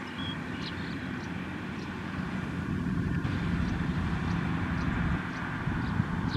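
Kubota M6040SU farm tractor's diesel engine running steadily under load as it pulls a loaded trailer, growing louder about halfway through as it comes close.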